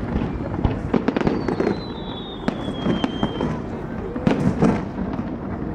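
Fireworks going off in a rapid series of bangs and crackles, the loudest near the end. A high whistle falls slowly in pitch for about two seconds in the middle.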